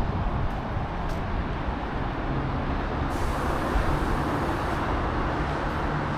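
Road traffic: a steady rush of passing vehicles, with a low engine hum coming in about two seconds in.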